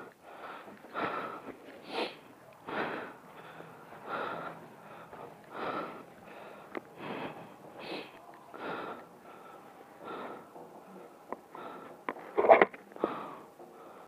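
A person breathing hard close to the microphone, panting about once a second, with a few light clicks; one louder breath near the end.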